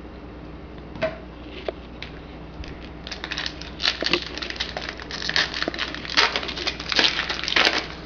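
A trading-card pack wrapper being handled and torn open, with crinkling and crackling that starts about three seconds in and gets louder toward the end. A couple of light clicks come before it.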